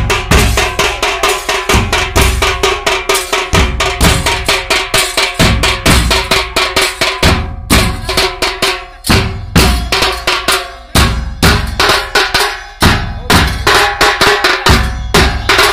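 Large bass drums beaten with sticks, with hand cymbals clashing, in a fast, driving Muharram mourning rhythm. The deep drum thumps drop out briefly a few times.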